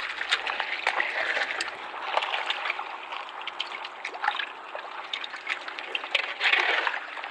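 Water splashing and trickling around a small wooden fishing boat, a steady wash broken by many small irregular splashes.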